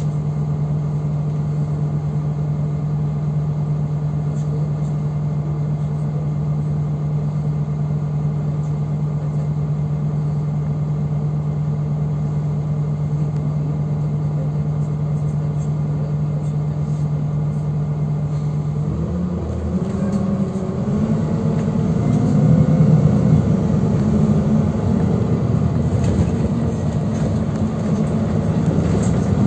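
Inside a city bus: a steady low hum while the bus stands still, then about two-thirds of the way through the drive noise grows louder and rises in pitch as the bus pulls away and speeds up.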